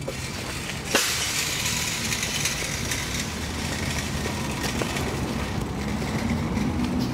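Street traffic noise: a steady rushing hiss over a low engine hum, coming in suddenly about a second in.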